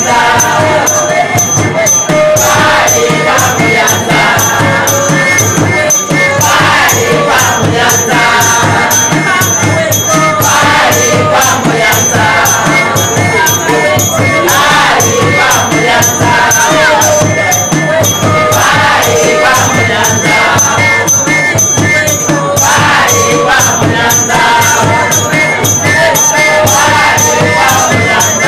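A group of people singing together to a steady, driving percussion beat, loud and unbroken throughout.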